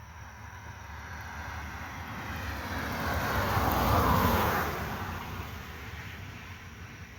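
A single vehicle passing on the road, tyre and engine noise swelling to a peak about four seconds in and then fading away. No horn is sounded.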